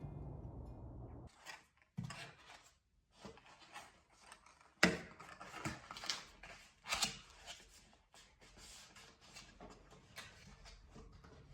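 Close handling sounds of macrame work: cord rustling, with irregular light clicks and knocks as the materials are worked by hand. A strummed guitar tune fades out in the first second or so.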